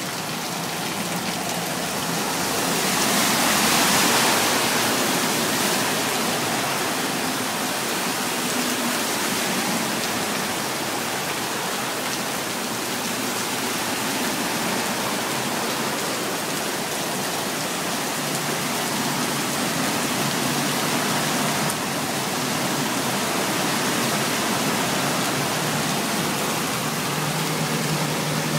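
Heavy rain pouring down, a dense, steady hiss that swells louder for a couple of seconds near the start.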